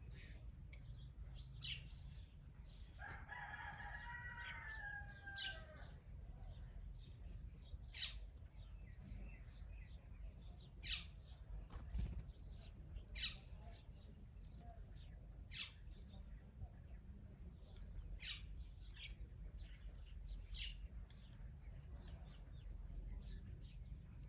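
Birds calling: short sharp chirps repeated every two seconds or so, and one longer call of several pitches that falls at its end, about three seconds in, over a faint low rumble.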